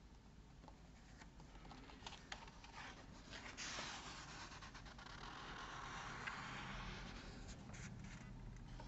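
Faint rustling of a paper page being turned in a hardcover picture book, starting about three and a half seconds in and lasting a few seconds, with a few light taps from handling the book before it.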